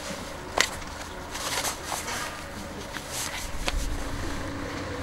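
Rustling and scuffing of a leather motorcycle racing suit being pulled on, with a sharp click about half a second in and another near four seconds.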